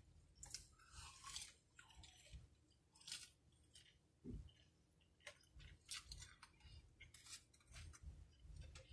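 A person chewing fried fast food close to the microphone, faint, with soft irregular clicks from the mouth and a brief hum about four seconds in.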